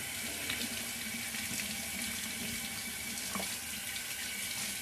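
Bathroom sink faucet running steadily into the basin, switched on abruptly, as a shaving razor is rinsed under it.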